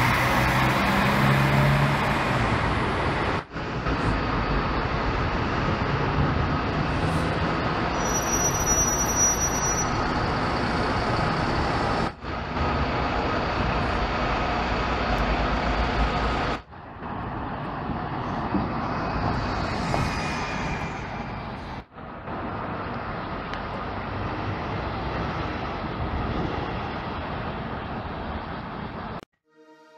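City buses driving past, their engines running amid traffic noise, in several takes that each break off abruptly.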